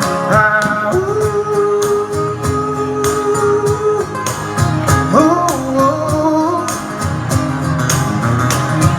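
Country song playing: guitar and a steady drum beat, with held, gliding melody lines and no sung words.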